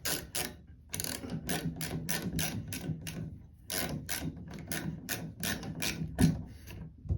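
Rapid ratcheting clicks from a hand tool being worked, about four clicks a second, in three runs with brief pauses between them.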